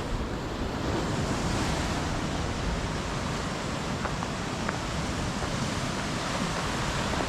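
Steady wash of ocean surf, mixed with wind.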